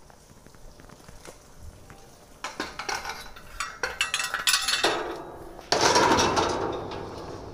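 Metal frame pulled from a river clanking and scraping against a metal bridge railing as it is hauled over. Faint knocks at first, a run of sharp clanks from about two and a half seconds in, then a louder, longer scrape near six seconds.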